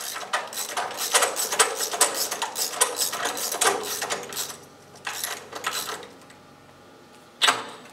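Socket wrench ratcheting in quick runs of clicks as a spark plug is snugged down into the engine, slowing to a few clicks, then a lull and one last sharp click near the end.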